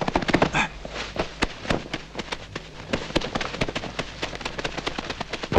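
Dry fallen leaves crunching and rustling underfoot as someone moves through them: a dense, irregular crackle, with a low steady hum underneath.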